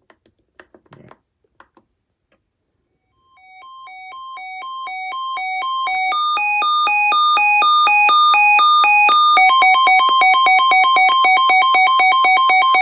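Sangean CL100 weather radio sounding its alert siren, an electronic two-tone warble that swells in loudness after a few faint clicks. About 6 s in it steps higher in pitch, near 9.5 s it switches to a faster alternation, and it cuts off suddenly at the end.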